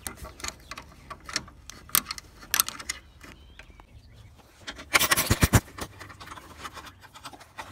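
Ratchet wrench with a 7 mm socket on an extension, clicking and scraping as it works a screw loose, with a quick run of clicks about five seconds in.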